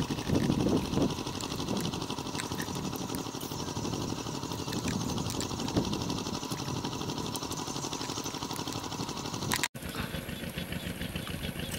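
A small engine running steadily with a fast, even pulse; the sound drops out for an instant near the end.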